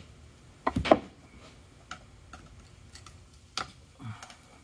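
Hammer striking a small punch set in a hole in a TH350 transmission case, driving out the accumulator snap ring: two sharp metal strikes about a second in, then a few faint light taps.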